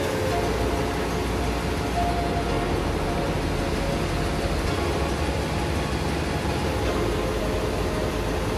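Steady din of running machinery in a ship's engine room, a constant low-heavy mechanical noise with no breaks. Background music plays faintly under it.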